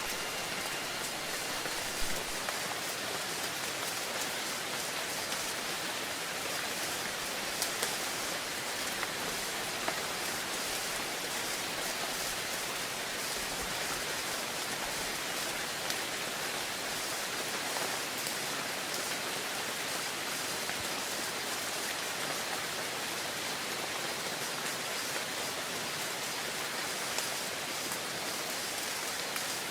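Steady rainfall with a few sharper drop ticks standing out. The last tones of a wind chime fade out in the first couple of seconds.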